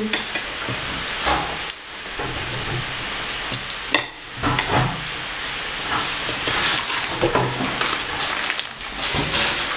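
Table knife scraping and clicking against a plate as a cake is cut and broken apart, over a continuous noisy hiss, with a few sharp clicks scattered through.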